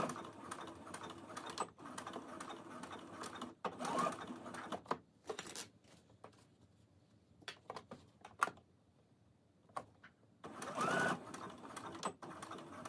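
Baby Lock Brilliant computerized sewing machine stitching fabric in short runs, its motor whining up in pitch as each run starts. In a quieter stretch around the middle, a few sharp clicks break the pause between runs.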